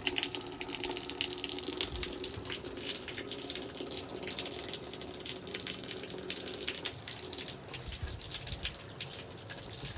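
Rainwater running off a roof edge that has no gutter, splattering steadily with many small splashes and drips.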